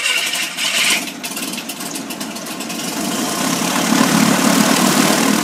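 A steady engine-like mechanical drone without speech. It dips about a second in, then grows gradually louder and heavier toward the end.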